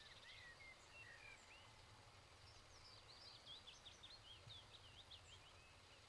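Faint wild birdsong over quiet outdoor background: a few short chirps, then from about two seconds in a quick run of high twittering notes.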